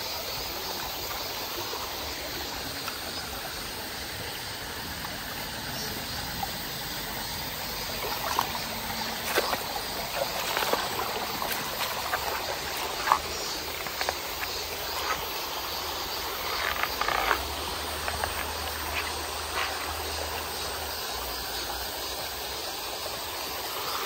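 Shallow mountain stream water running and trickling over rocks in a steady wash. Scattered short ticks sound over it from about a third of the way in to past the middle.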